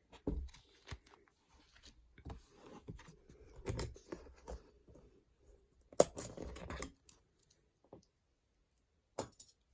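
Plastic binder pages and photo card sleeves being handled: rustling and crinkling with small clicks and knocks, and a louder burst of clattering about six seconds in.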